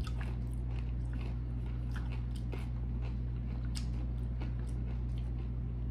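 Close-miked chewing of crunchy tostada pieces: scattered crisp crackles and mouth clicks over a steady low hum.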